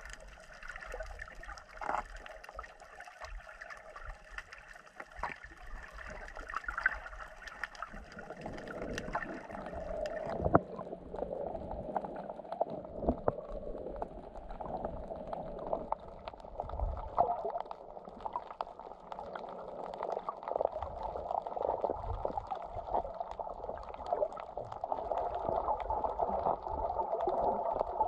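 Sea water gurgling and sloshing around a snorkeler's camera. About ten seconds in, the sound turns dull with the hiss gone, as heard underwater: a muffled bubbling and swirling with scattered clicks and low knocks.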